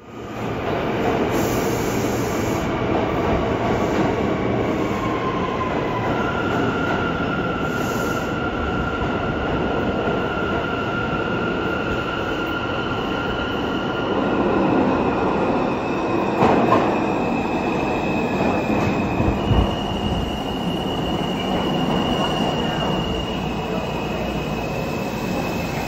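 R160A-2 subway train entering the station and running alongside the platform: a steady rumble of wheels on rail with high squealing tones that shift in pitch a few times, and a couple of louder clanks about two-thirds of the way through.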